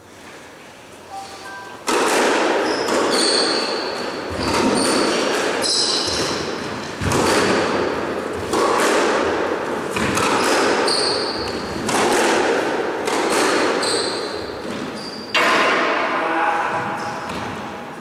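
Squash rally: the ball is struck by rackets and hits the walls, giving sharp cracks that ring in the enclosed court, one every second or two. Short high squeaks from the players' shoes on the wooden floor come between the shots. The rally starts about two seconds in and dies away near the end.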